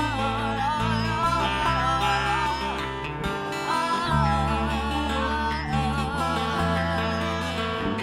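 A woman singing a soulful, wavering melody over plucked-string accompaniment, with held bass notes changing about every second.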